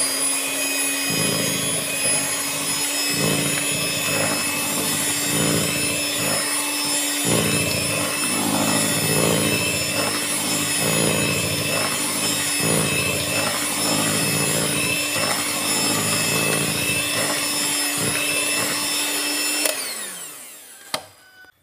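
Electric hand mixer (Miyako) running steadily at one speed, its beaters churning through thick cake batter in a bowl. The motor winds down and stops near the end.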